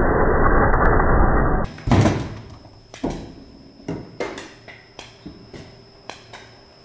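Lathe gouge cutting a spinning resin-and-golf-ball blank, a rough, heavy scraping that stops sharply after about a second and a half. Then a series of light knocks, irregular and a fraction of a second to a second apart, over a faint steady high whine.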